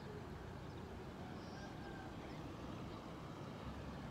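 Low steady rumble of road traffic that grows louder near the end as a vehicle approaches, with a few faint bird chirps.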